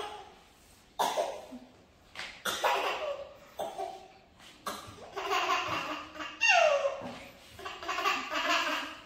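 Eight-month-old baby laughing in repeated bursts, with coughs from laughing so hard, and a high falling squeal about six and a half seconds in.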